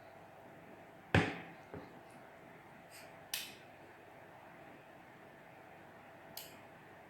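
A few scattered clinks and knocks of kitchen utensils and dishes, the loudest about a second in, with long quiet gaps between.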